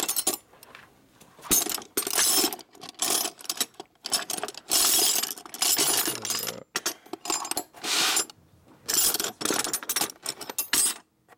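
Loose hand tools (sockets, combination wrenches, screwdrivers and hex keys) clinking and clattering against each other in a tub as a hand rummages through them, in repeated bursts with short pauses between.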